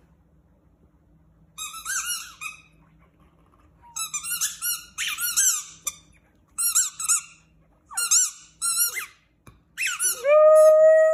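Small dog squeaking a rubber squeaky chew toy: bursts of short, high, wavering squeaks. Near the end a longer, lower, drawn-out howl-like whine from the dog.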